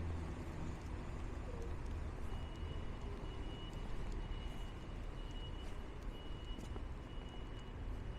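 City street traffic rumbling steadily, with a high beeping tone repeating from about two seconds in.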